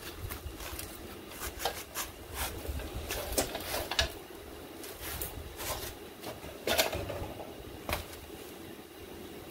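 Light, irregular metal clicks and scrapes, a dozen or more at uneven spacing, as steel parts are handled and knocked against a painted truck frame, over a low steady hum.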